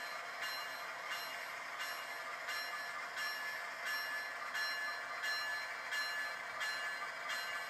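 Electronic bell of a model train's sound system ringing steadily, about one and a half strikes a second.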